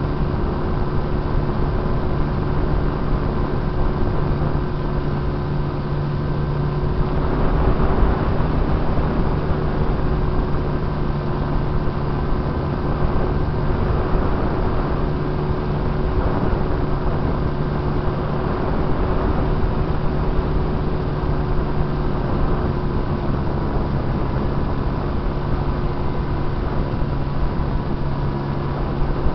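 Radio-controlled airplane's motor and propeller running at a steady pitch, heard from a camera mounted on the plane, with a rush of air over the microphone. It grows a little louder about seven seconds in.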